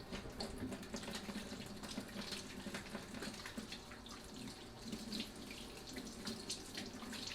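Kitchen tap running steadily into a sink while hands are rinsed under the stream.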